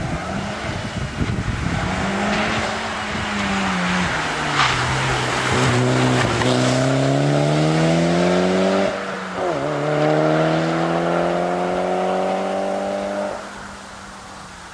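Mitsubishi Lancer Evolution VIII rally car's turbocharged four-cylinder engine accelerating hard past and away. The revs climb through one gear, drop at a quick upshift about nine seconds in, then climb again before the engine fades into the distance near the end. A single sharp crack about four and a half seconds in.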